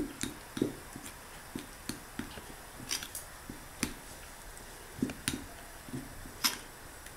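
Metal spoon stirring a wet paste of harissa, oil and cumin in a ceramic bowl: irregular light clinks and soft taps of the spoon against the bowl, about two a second.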